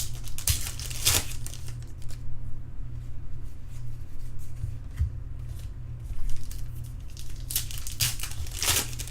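Trading card pack wrappers being torn open and crinkled, in short rustling bursts about a second in and again near the end.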